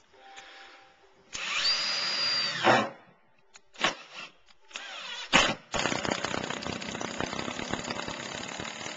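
Power drill driving a Cortex screw into a Trex composite deck board, countersinking it: a short spin-up with a rising whine, a few knocks, then a longer steady run.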